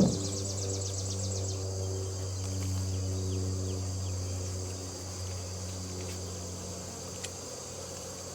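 A knock at the start, then a steady low buzzing hum that fades after about five seconds. Over it, a rapid, high, pulsing insect trill, like crickets or katydids, runs for the first two to three seconds.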